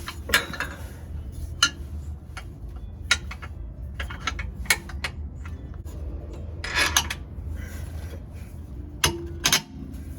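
Metal clicks, clinks and scraping as a bolt is pushed through the differential underguard bracket and threaded in by hand, over a steady low hum.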